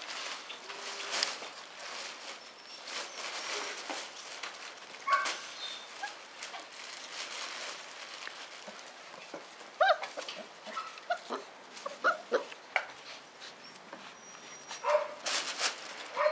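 Five-week-old puppies at play: short, high yips and whimpers, several in the second half, among scuffling and light knocks.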